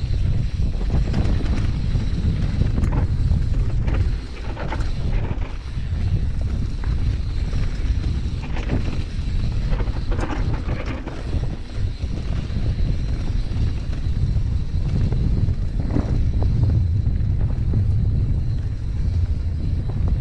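Wind buffeting the microphone of a mountain bike camera on a fast singletrack descent, with scattered knocks and rattles from the bike over rough ground. The wind noise dips briefly twice.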